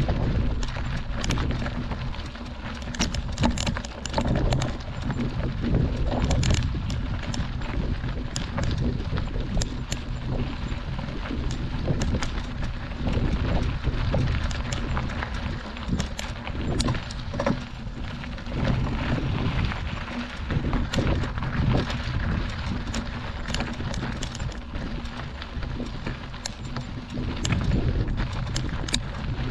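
Mountain bike rolling over a gravel dirt road: tyres crunching over stones, with frequent small clicks and rattles from the bike and wind buffeting the microphone.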